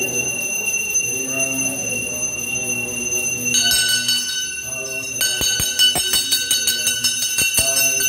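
Bells ringing over steady pitched music. About three and a half seconds in, more bells join, and from about five seconds they are struck rapidly, many strikes a second.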